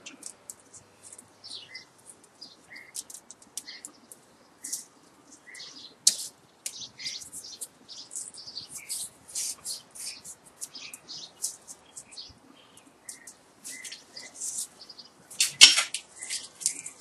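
Copper magnet wire being hand-fed and pressed into the slots of an electric motor stator during rewinding: a run of light, irregular scratches, ticks and small squeaks, with a sharper snap near the end.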